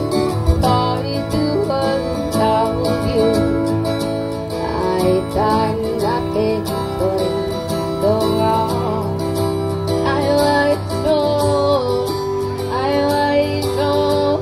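A woman singing a song live into a microphone, her voice gliding and bending over a steady instrumental accompaniment with guitar.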